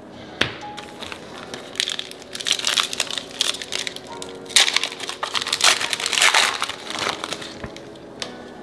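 Plastic-foil trading card pack wrapper crinkling and crumpling in the hands, in a run of irregular crackling rustles for several seconds.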